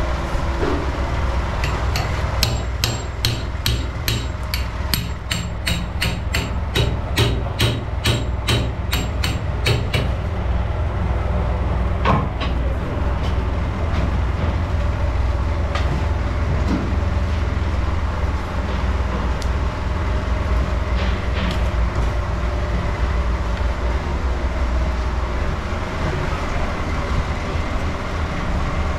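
A heavy blade chops meat on a chopping block to mince it, in a fast even run of about three strokes a second for several seconds, then scattered single knocks. A steady low rumble runs underneath.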